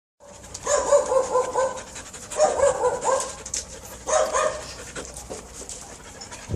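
A dog barking in three bursts of short, high-pitched barks, each burst a quick run of several barks, the bursts about a second and a half apart.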